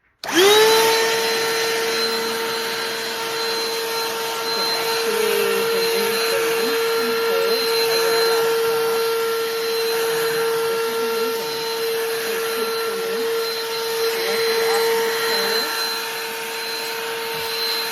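BLACK+DECKER 20-volt dustbuster cordless handheld vacuum switched on: the motor spins up within half a second, then runs at a steady high whine over a rush of air.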